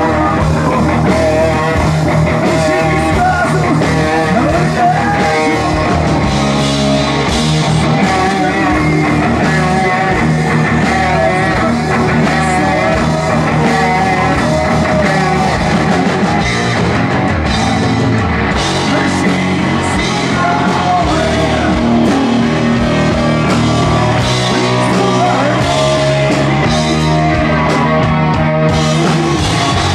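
Live rock band playing loudly and continuously: electric guitars, bass guitar and drum kit, with a singer's vocals.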